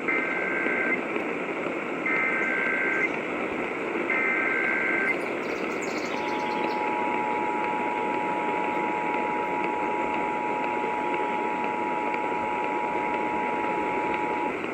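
Emergency Alert System tones over a hissy radio signal: three one-second bursts of the SAME header's data screech about a second apart, then the two-tone EAS attention signal, two steady pitches sounded together for about eight seconds.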